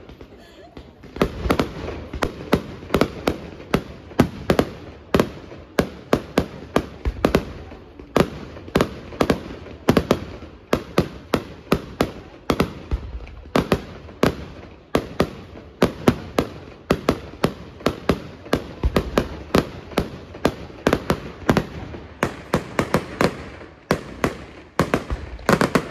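Fireworks display: a continuous barrage of aerial shell bursts, two to four sharp bangs a second, with a low rumble between them.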